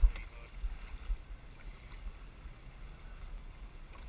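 Wind rumbling unevenly on the microphone over a faint hiss of wind and water, with a thump right at the start.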